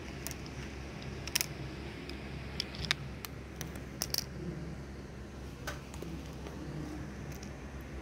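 Handling noise on a phone's microphone: scattered light clicks and taps, about seven in all and none after about six seconds in, over a steady low hum.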